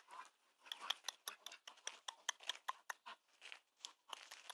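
Faint crunching footsteps on a gravel path: a quick, irregular run of light crackles and clicks.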